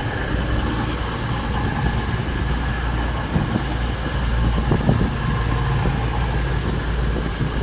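Class 222 Meridian diesel multiple unit standing at the platform with its underfloor diesel engines idling, a steady low hum with a faint constant whine above it.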